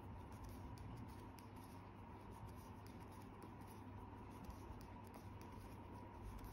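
Faint, irregular clicks and rustles of metal straight knitting needles working wool yarn, over a low steady background hum.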